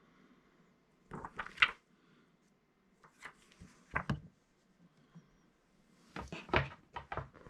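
Comic books and their storage boxes being handled: three short bursts of knocks, taps and rustling as issues are picked up, set down and moved.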